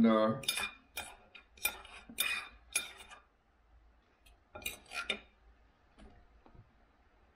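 Knife and fork clinking and scraping on a dinner plate: a quick run of clinks over the first three seconds, then two more about five seconds in.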